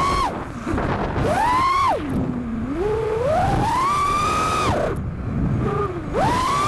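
FPV quadcopter's XING 2307 2450kv brushless motors spinning Gemfan Sbang 4934 props, whining as the throttle is punched and chopped. Three times the whine falls away sharply and climbs back up, once quickly and once in a slower rise.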